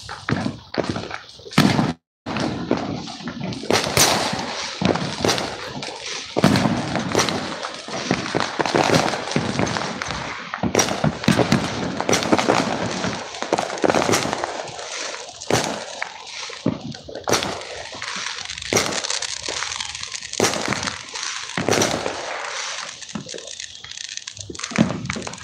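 Fireworks going off: a continuous barrage of crackling with sharp bangs about every one to two seconds.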